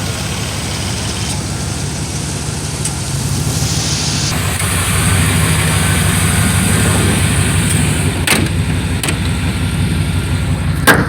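Chevrolet 5.7L 350 small-block V8 running steadily at idle, getting a little louder a few seconds in. A sharp click near the end is the loudest moment, with a smaller one shortly before.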